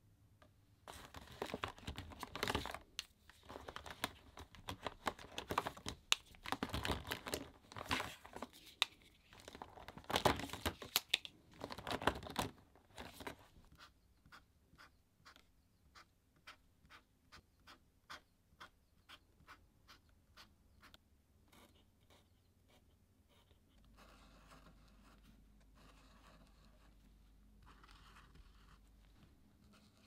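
Masking tape being torn into strips, with loud tearing and crinkling in several bursts over the first dozen seconds. Then come quick light taps, a few a second, and soft scratching as a Posca paint-marker tip works on a thick acrylic-painted journal page.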